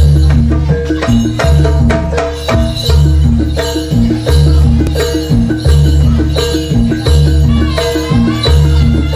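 Live jaranan gamelan music played loudly: deep gong-like low notes repeat about every second and a half under struck metallophone notes and drum strokes, in a steady driving rhythm.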